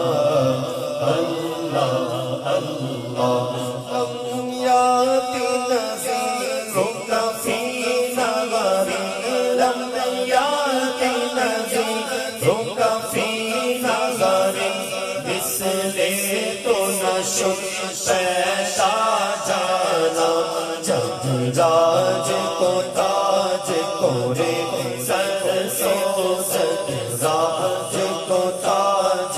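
A man's voice chanting a hamd, an Islamic devotional hymn praising God, into a microphone in long, wavering melodic lines.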